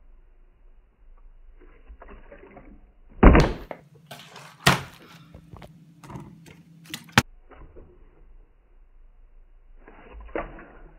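Partly filled plastic water bottle tossed and landing on a hard stone tabletop: a loud thud about three seconds in, a second knock a second and a half later, then lighter knocks and a sharp click as it is handled.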